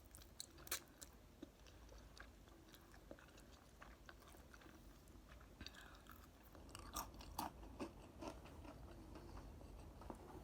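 Faint close-up chewing of a mouthful of enoki mushroom and noodles: soft wet clicks and smacks scattered throughout, coming more often between about six and nine seconds in.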